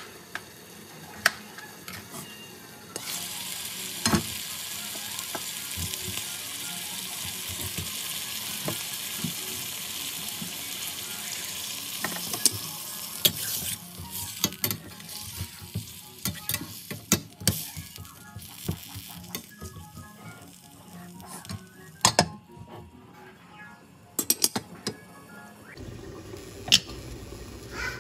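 Chicken and potato curry sizzling steadily in a steel pan, then a spoon stirring and scraping the chunks with scattered clicks and knocks against the pan. A few sharp knocks come near the end.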